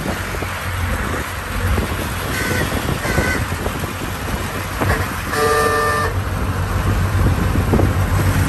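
Vintage car engines running with road noise as a Ford Model T drives alongside. Two short high beeps come about two and a half and three seconds in, then a car horn honks once for most of a second about halfway through.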